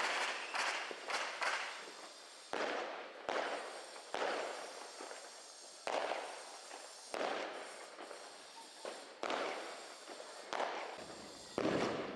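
Chain of linked heavy firework cakes (Hallucinator, Excultor 2.0 and DC Beam) firing shot after shot: a sudden bang about one or two times a second at an irregular pace, each trailing off quickly.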